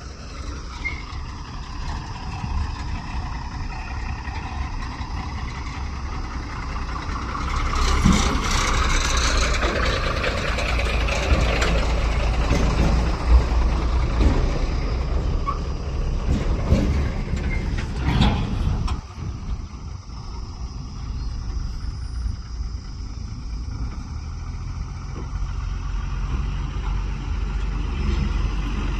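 Diesel engine of a JCB backhoe loader running under work with a steady low rumble. From about eight seconds in it grows louder and rougher for some ten seconds, with a few sharp knocks, then settles back to the steady run.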